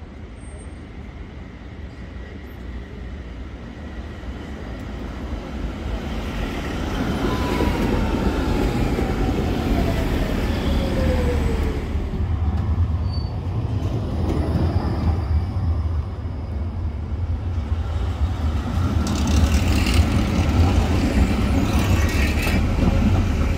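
High-floor PCC trams running past close by on street rails: a rumble of wheels on track that builds as one approaches, with a whine falling in pitch about halfway. Near the end there is a rattling clatter as a tram passes.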